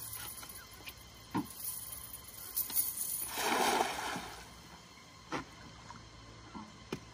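A thrown cast net landing on the lake surface about three and a half seconds in: a spreading, hissing splash of the weighted mesh hitting the water, lasting about a second.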